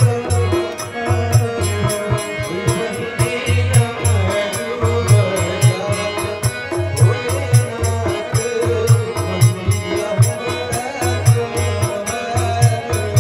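Devotional folk music: a harmonium carries the melody over a steady hand-drum beat and a quick, even jingling percussion rhythm.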